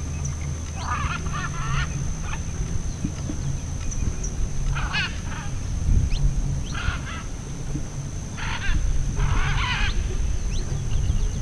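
A large parrot calling: a series of harsh, raucous squawks every second or two, which the uploader takes for a blue-and-yellow macaw (arara-canindé). A steady low rumble runs underneath.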